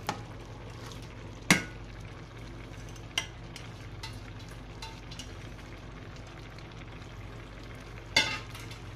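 Pot of rice and beef gravy simmering with a steady low sizzle. It is broken by a few sharp metal knocks, the loudest about a second and a half in, as the steel bowl of cooked beef is tipped out and knocked against the pot.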